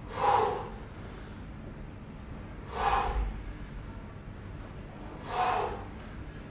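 A man breathing out hard three times, evenly spaced about two and a half seconds apart, in time with repeated side slide squats under exertion.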